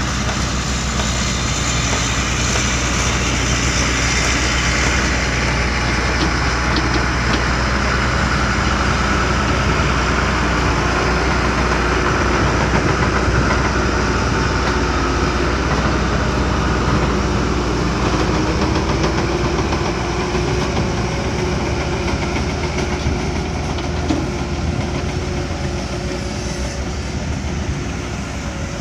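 Backhoe loader's diesel engine running steadily under work, with a faint whine that slowly rises and falls in pitch as the machine's hydraulics work. It gets slightly quieter near the end.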